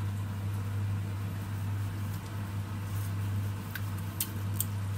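A steady low hum from a running kitchen appliance under a faint even hiss from the pan of sweet and sour sauce simmering on the hob; a few light clicks near the end.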